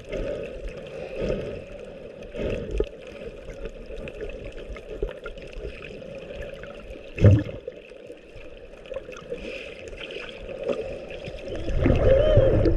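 Water heard underwater: a muffled, steady rush with many small crackling clicks. There is a single strong thump about seven seconds in, and the sound grows louder and fuller near the end.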